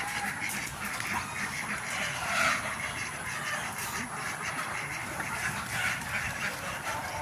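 A flock of farm poultry calling, with irregular squawking calls over a steady din; the loudest call comes about two and a half seconds in.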